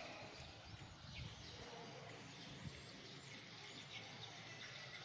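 Quiet outdoor ambience with a few faint, short bird chirps scattered through it.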